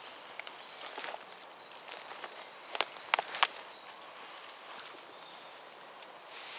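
Dry twigs and sticks crackling as they are handled on the forest floor, with three sharp snaps in quick succession about three seconds in. A high, thin bird trill follows for a couple of seconds.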